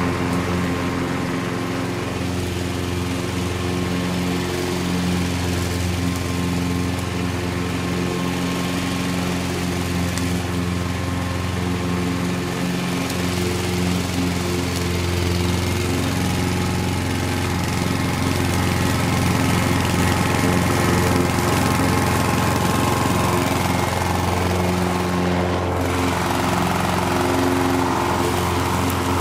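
A Honda HR 214 walk-behind lawn mower with its Honda GXV120 single-cylinder engine running at a steady speed while cutting grass, the blade under load.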